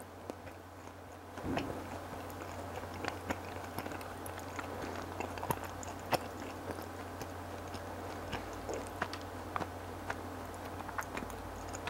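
A person chewing a soft, chewy pancake filled with red bean paste, close to the microphone: small, irregular wet clicks and smacks from the mouth, over a low steady hum.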